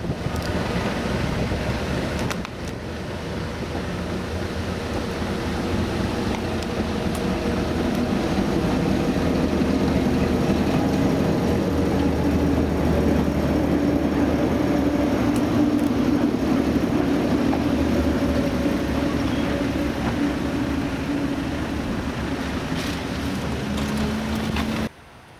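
A train running past with a steady low mechanical hum. It grows louder towards the middle, eases off, then cuts off abruptly near the end.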